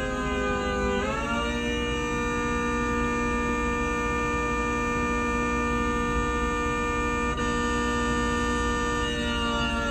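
ACA Hurricane siren sounding its steady alert signal, a loud chord of several tones. The pitch sags, climbs back up sharply about a second in, holds steady, and begins to fall again near the end.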